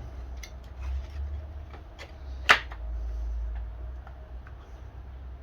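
Light clicks and taps of chainsaw parts being handled during reassembly, with one sharp click about two and a half seconds in, over a steady low hum.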